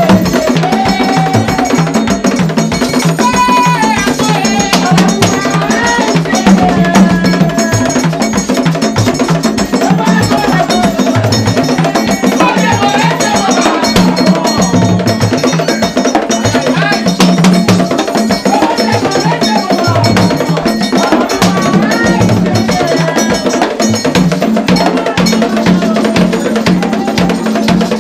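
Haitian Vodou ceremonial music: voices singing together over drums and a metal bell struck in a steady, fast pattern.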